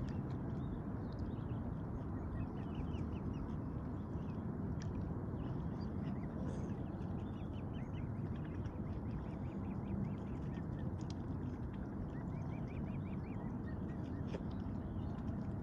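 Mute swan cygnets peeping in several runs of short, quick, high calls while the family feeds on seed, over a steady low background rumble, with a few sharp clicks.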